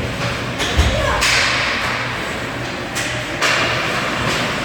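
Ice hockey play in an arena: a heavy thud about a second in and sharp knocks around three seconds in, over a steady noisy rink background with voices.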